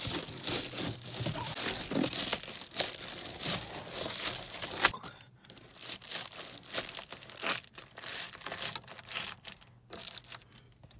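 Reflective foil bubble insulation crinkling and crackling as hands press and smooth the sheet over a window. Dense crackling for about the first five seconds, then scattered bursts that thin out toward the end.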